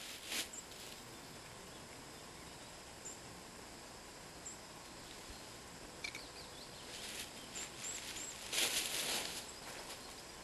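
Quiet woodland ambience: a faint steady hiss with a few short, high bird chirps, and a brief rustle of footsteps in dry grass and leaves about nine seconds in.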